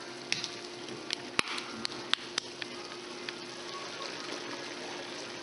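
Beef sizzling in hot grease in a pan, a steady frying hiss over a low hum, with several sharp clicks and pops in the first three seconds.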